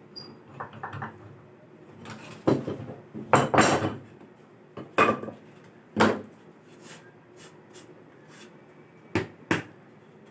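Irregular sharp knocks and a scraping rustle of tools and wood being handled, about a dozen strikes, with the loudest cluster in the first half and two quick knocks near the end.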